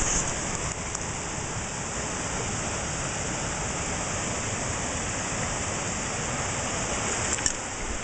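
Steady rush of a shallow, rocky stream flowing, with a brief light tick near the end.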